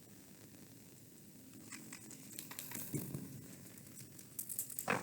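Faint paper rustling and crinkling of a picture book being handled and its page turned. It begins about a second and a half in and grows busier toward the end.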